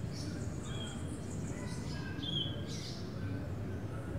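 Small birds chirping in short, high calls, several times, over a steady low background hum.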